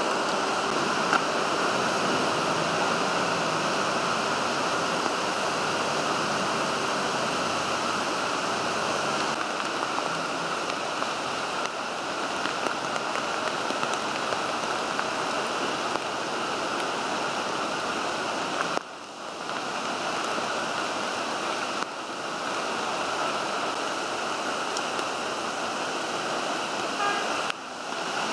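Heavy downpour and rainwater running in a flooded street: a steady, even rush of water. It dips briefly about two-thirds of the way through and again near the end.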